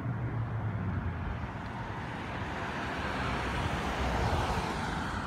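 Road traffic noise, with a vehicle passing that swells to its loudest about four seconds in.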